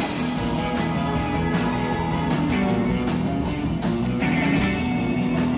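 Live rock band playing: electric guitar and drums, with repeated cymbal crashes.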